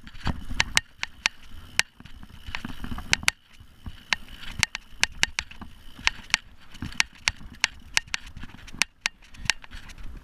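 Mountain bike rolling down a rough dirt trail: sharp clicks and clacks at irregular intervals from the frame and drivetrain as it jolts over roots and bumps, over a low rumble of the tyres on dirt that comes and goes.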